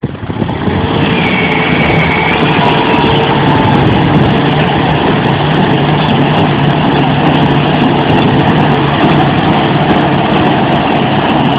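Diesel engines of a New Holland TD75D and an Erkunt 80.4 tractor running hard under heavy load, pulling against each other in a tug-of-war; a steady, loud engine drone.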